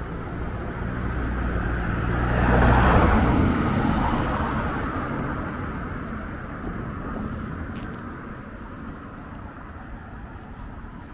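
A car passing by on the road. Its low engine hum and tyre noise grow louder to a peak about three seconds in, then fade slowly away.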